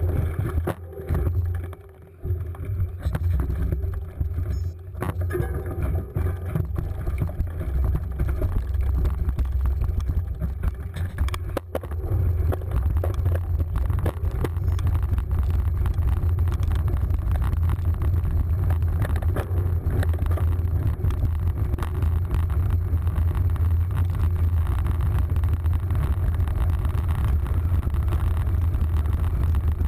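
Wind buffeting and tyre rumble picked up by a handlebar-mounted camera on a cyclocross bike riding over dirt and gravel. It is uneven with dips through the first dozen seconds, then a steady, loud rumble.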